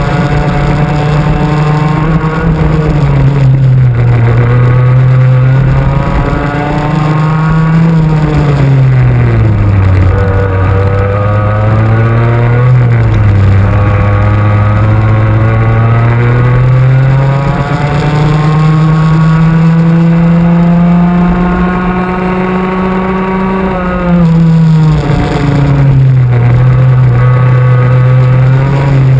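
Racing kart's two-stroke engine heard onboard at full throttle, its pitch dropping several times as the kart brakes into corners and climbing again as it accelerates out.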